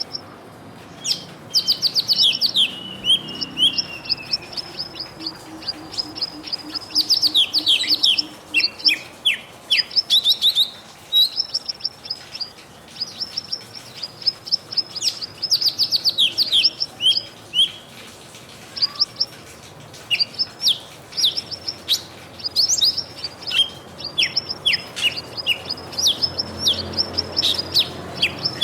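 Birds chirping and twittering in rapid runs of short high notes, several calls overlapping and continuing with brief gaps throughout.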